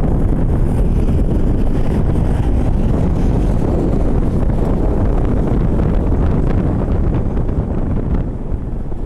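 Strong gusty wind buffeting the microphone, a loud low rumbling noise that eases slightly near the end.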